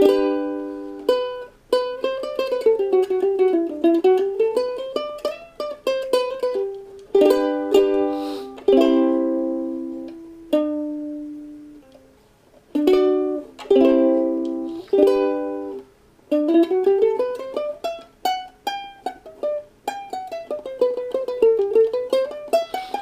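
Ukulele played by hand: strummed chords near the start, in the middle and around two-thirds through, between single-note scale runs that climb and fall in pitch.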